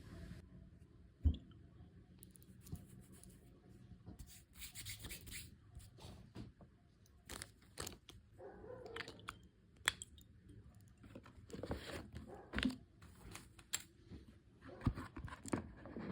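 Perfume packaging being handled and opened by hand: intermittent rustling and tearing of wrapping, with scattered sharp taps and clicks from the box.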